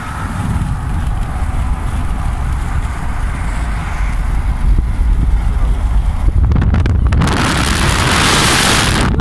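Car driving fast, with steady low road and wind rumble buffeting the phone microphone. A louder rushing hiss swells up about seven seconds in and lasts nearly two seconds.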